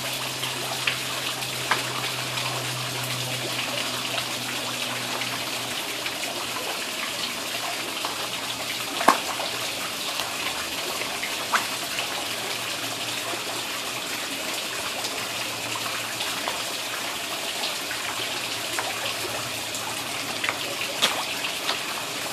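Steady trickle of water running into a koi pond, with scattered short pops and splashes as koi take floating pellets at the surface, the sharpest about nine seconds in. A low hum fades out after the first few seconds.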